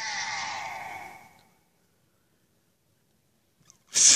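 A voice making a breathy, sigh-like sound effect for a toy figure. It falls slightly in pitch and fades out after about a second and a half. Near the end a loud breathy hiss starts.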